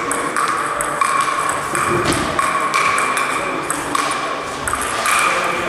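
A table tennis rally played with sandpaper-faced bats: the ball clicking off bat and table back and forth at about two hits a second.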